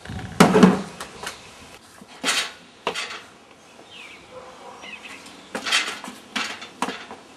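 A run of sharp bangs and clatters as metal patio furniture is knocked about. The heaviest comes about half a second in, with a deep thud under it, and smaller crashes follow at uneven intervals.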